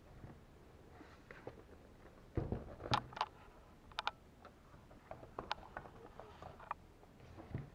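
Handling noise of an HP ProBook 450 G2 laptop's plastic case: a knock about two and a half seconds in as it is turned over and set down on the desk, then scattered clicks and taps as hands press on the keyboard and palm rest.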